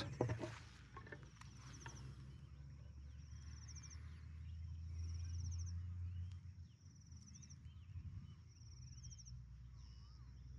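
Faint rural ambience of small animal calls: short, high chirping trills repeat about every second, with scattered softer calls beneath. A low rumble swells in the middle.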